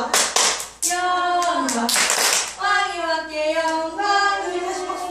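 A group of small children singing an action song together, with a burst of hand clapping at the start and another about two seconds in, between the sung lines.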